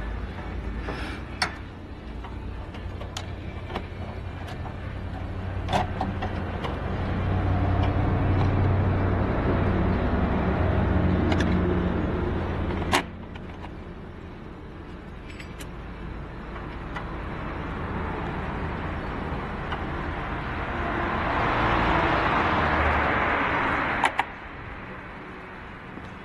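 Nissan Tiida engine running with a noisy alternator one-way clutch pulley, the sign of a failing overrunning bearing in the pulley. The noise swells twice and each time drops off suddenly with a sharp click, about 13 and 24 seconds in.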